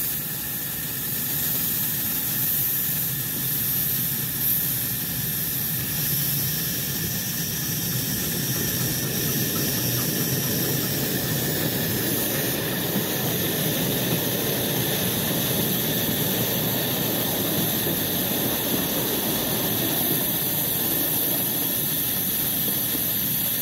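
Steady loud hiss of steam from a standing 7¼-inch gauge miniature steam locomotive. A passenger train runs past on the adjacent track in the middle, adding a low rumble under the hiss.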